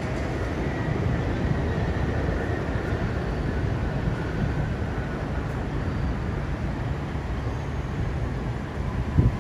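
R62A subway train running express on an elevated steel structure, a steady rumble of wheels on rails easing slightly as it pulls away, with a faint high whine. Near the end a gust of wind buffets the microphone with a low thump.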